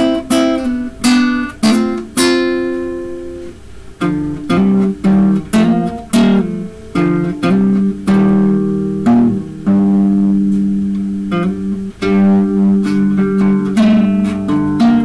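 Acoustic guitar played by hand: plucked notes and chords ring out and fade, spaced apart at first, then coming closer together from about four seconds in.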